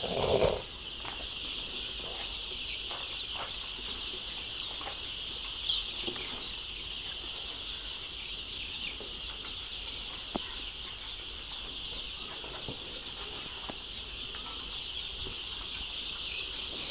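A large flock of newly arrived layer chicks peeping continuously, a dense high-pitched chorus, with a few faint knocks.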